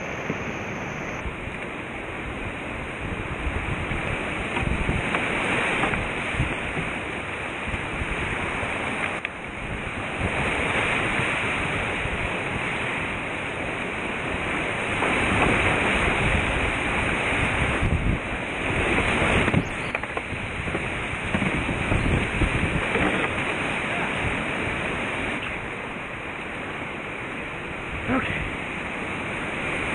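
Creek whitewater rushing and splashing close around a whitewater kayak running a rapid, a steady roar of water that swells louder at times.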